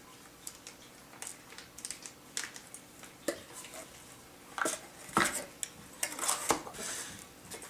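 Light clicks, taps and scrapes of small hard parts and tools being handled while a phone is taken apart, with a few sharper knocks past the middle.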